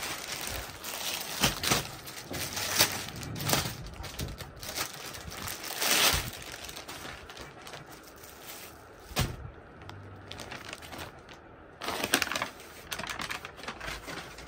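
Clear plastic garment packaging crinkling and velvet fabric rustling as a suit is handled and unfolded by hand, in a run of irregular short crackles.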